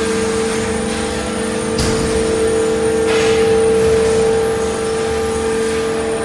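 Bulky-waste shredding line running: a loud, steady machine hum with a held whine from the conveyor and shredder drives. A sharp crack about two seconds in, then a short crunching burst about a second later.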